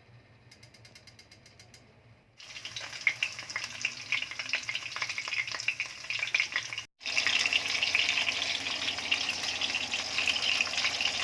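Salmon frying in hot olive oil in a pan: a sizzle full of crackles starts suddenly about two seconds in, drops out for an instant midway, then keeps on steadily. Before it there is a faint rapid ticking.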